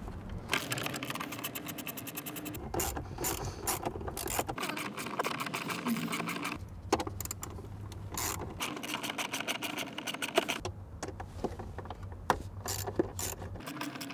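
Small cordless electric screwdriver running in several short runs of a couple of seconds each, with a steady hum, backing out the screws that hold an instrument cluster. Light clicks of the tool and dash plastic fall between the runs.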